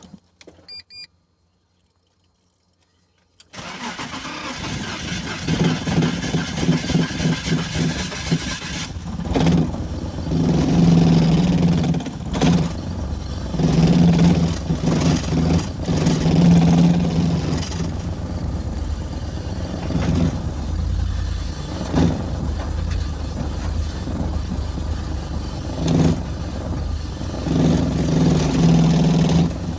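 A BMW engine is cranked and catches about three and a half seconds in, then runs roughly, its loudness surging and dropping unevenly: a misfire that the owner puts down to spark plug and ignition coil trouble.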